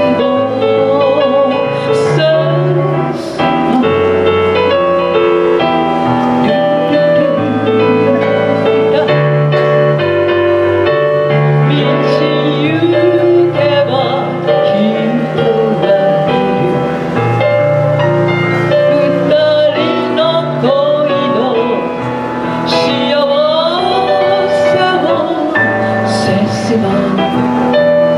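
A woman singing a chanson into a handheld microphone, her voice wavering with vibrato over instrumental accompaniment.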